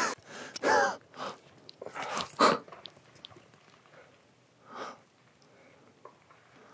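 A few short, breathless exclamations and gasps from a hunter reacting to a successful rifle shot, separated by quiet gaps.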